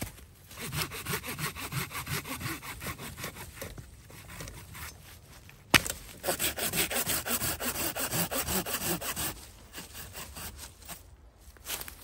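Hand saw cutting through a fallen birch log with rhythmic back-and-forth rasping strokes in two bouts. There is a single sharp click between them, just before the middle.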